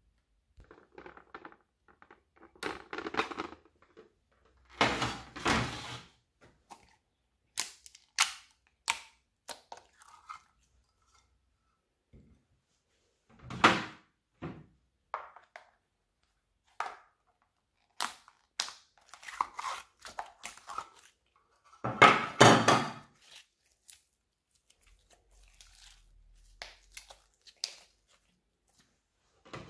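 Slime being stretched, squeezed and pressed together by hand: irregular sticky squelches and sharp popping clicks, with longer, louder squishes about five, fourteen and twenty-two seconds in.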